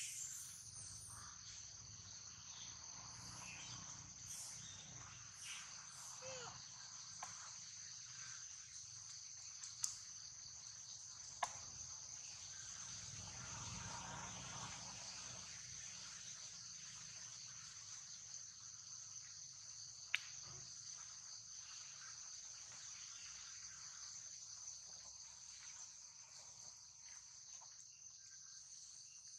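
Faint, steady, high-pitched chorus of insects, unbroken throughout, with a few sharp clicks standing out.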